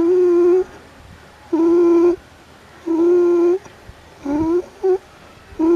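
Domestic pigeon (rock dove) cooing: a run of low, steady coos, each well under a second long, about one every one and a half seconds. One coo about two-thirds of the way in rises in pitch and is followed by a short clipped note.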